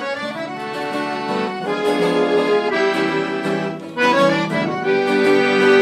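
Piano accordion playing a slow tune in held chords, the chord changing about every second or so.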